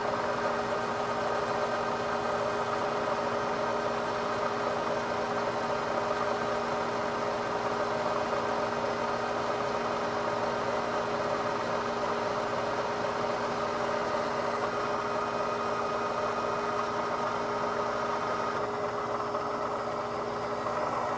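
Metal lathe running steadily at one speed, a constant motor and gear whine with several fixed tones over a hiss.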